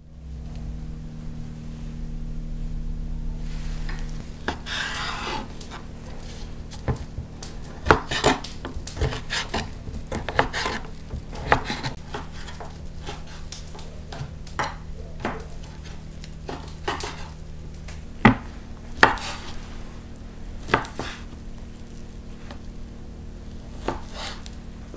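Large kitchen knife slicing sheep's fat tail on a wooden cutting board: irregular knocks of the blade striking the board, some sharper than others, over a faint steady hum.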